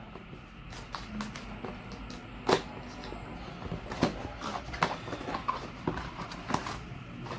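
Cardboard packaging being handled and opened: a camera's retail box slid out of its printed sleeve and its flaps opened, with scattered knocks and rustles, the loudest knock about two and a half seconds in.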